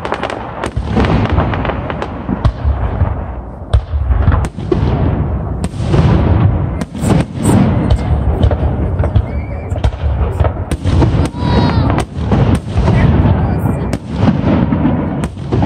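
Fireworks display: aerial shells bursting in quick succession, sharp bangs one after another with crackle between them.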